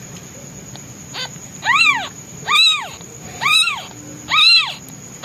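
Newborn kitten meowing loudly and repeatedly: a faint short call about a second in, then four high calls about a second apart, each rising and then falling in pitch. It is the distress call of a hungry newborn kitten separated from its mother.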